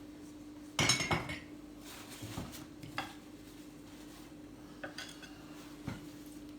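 China cups and saucers clinking and knocking against each other as they are handled. The loudest cluster of clinks comes about a second in, followed by a few single lighter clinks.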